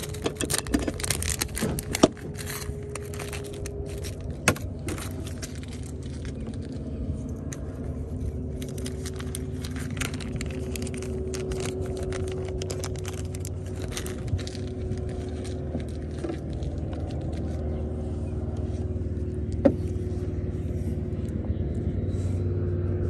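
A motor running steadily: a low hum whose pitch drifts slowly, growing a little louder near the end. Rattling clicks over the first few seconds.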